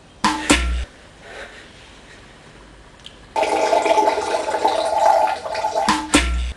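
A stream of liquid splashing into a toilet bowl, a man urinating: it starts suddenly about three seconds in, runs steadily with a ringing, pitched splash, and stops abruptly near the end. A short loud knock with a deep thud comes near the start and another just before the stream stops.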